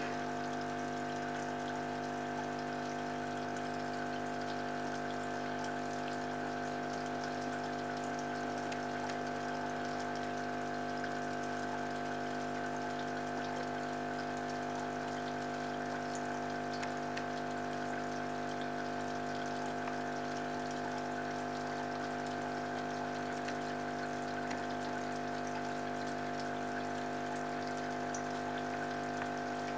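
Aquarium pump running with a steady hum, with water trickling.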